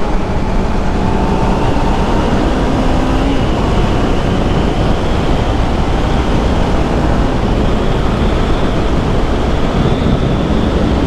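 2019 Yamaha R3's parallel-twin engine through an Akrapovic slip-on end can, revving up as the bike accelerates, its pitch rising, with heavy wind rumble on the helmet microphone.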